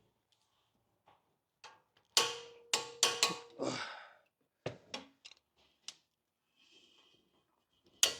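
Hand tools knocking on metal: about five sharp metallic clanks, some with a brief ring, in a quick run about two seconds in, then a few lighter clicks, as a wrench and socket are worked onto a brake caliper's mounting bolts.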